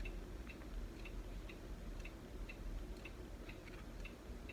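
Faint, even ticking of a clock, about two ticks a second, over a low room hum.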